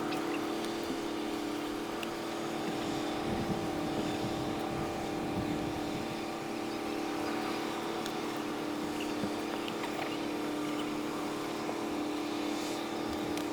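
Steady mechanical hum with several held tones over a constant noise, sped up five times.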